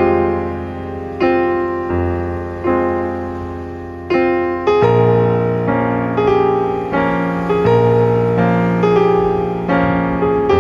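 Background piano music: slow chords struck roughly once a second, each left ringing.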